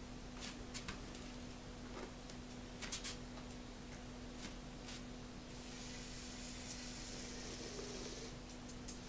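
Yokomo nanoQLO ultra-micro 4WD rock crawler working over a paper-pulp terrain plate: scattered light clicks and taps of its tyres and chassis on the paper, and from about halfway a faint high whir from its tiny motor and gears as it climbs. A steady faint hum lies underneath.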